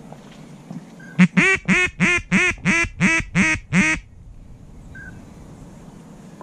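A duck call blown in a quick, even run of about nine loud quacks, a mallard hen-style greeting call.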